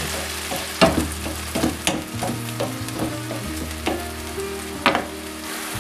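Diced cherry tomatoes sizzling in hot olive oil in a nonstick frying pan while a wooden spoon stirs them, with a few sharper knocks and scrapes of the spoon against the pan.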